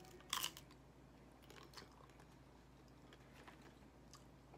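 A bite into a loaded nacho tortilla chip, with one short, loud crunch about half a second in, followed by faint chewing.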